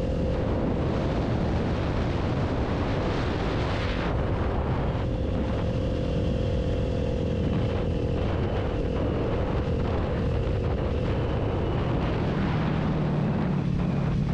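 Kawasaki Ninja 400 parallel-twin engine running under way through a Two Brothers aftermarket exhaust, mixed with wind rushing over the microphone. The engine note is steady, then drops lower about twelve seconds in.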